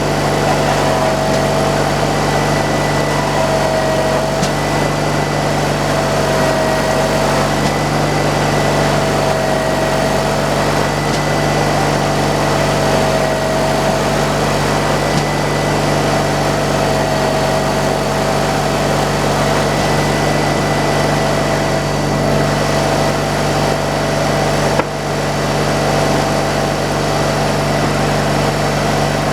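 Portable sawmill running steadily under power, with a whine that slowly wavers in pitch about every three seconds.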